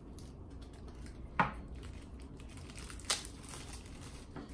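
Black vinyl KAWS Along The Way figures being handled and set down on a tabletop: two sharp knocks, about one and a half and three seconds in, with faint handling clicks and rustles between.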